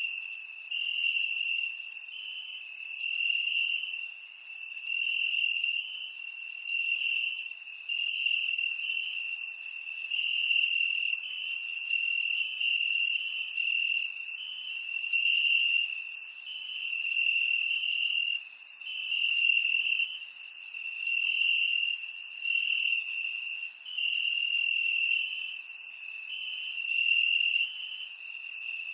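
Crickets chirping in a continuous high trill that swells and fades about every two seconds, with faint sharp ticks above it.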